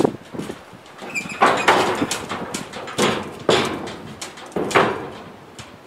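Horse's hooves knocking on a stock trailer's floor as a yearling steps up and into the trailer: about six heavy, irregular hoof strikes, each with a short ringing tail off the steel trailer.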